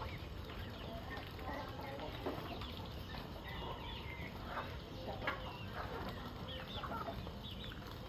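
Chickens clucking and chirping in short, scattered calls over a steady low background noise.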